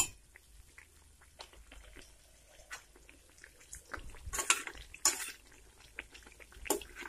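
Batter-coated eggs deep-frying in hot oil in a steel pan: a faint sizzle broken by a few louder crackles, the strongest about four and five seconds in and again near the end.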